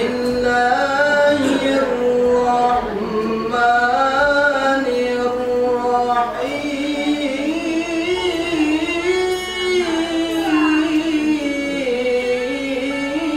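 A man reciting the Quran aloud in a melodic chanted style: one voice holding long, ornamented notes that slowly rise and fall.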